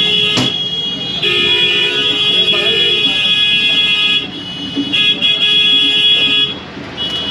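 Vehicle horns honking in long, sustained blasts, at times overlapping, that break off and start again about a second in and again around four seconds in. A sharp click sounds about half a second in.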